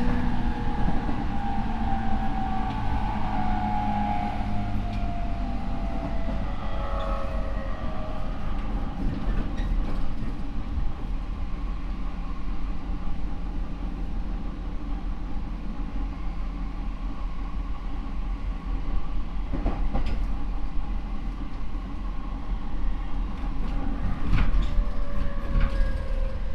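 Rinkai Line 70-000 series electric train (Mitsubishi IGBT inverter, MT73 traction motors) running: the inverter and motor whine falls in pitch over the first several seconds, then steady rolling noise carries on, with a few sharp clicks from the rails and another falling motor tone near the end.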